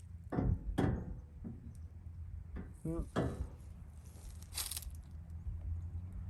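Several short knocks and clicks at irregular intervals, with a brief rustle about two-thirds of the way through, over a low steady hum.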